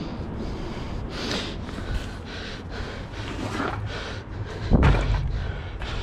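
A climber breathing hard in repeated breathy gusts while going up steel stairs, with one loud thump just under five seconds in.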